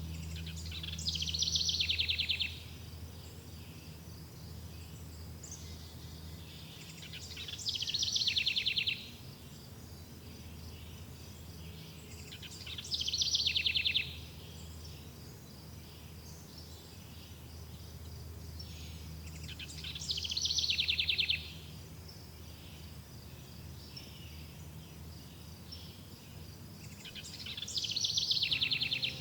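A songbird repeating the same rapid, falling trill five times, about every six seconds, over the steady chirring of insects.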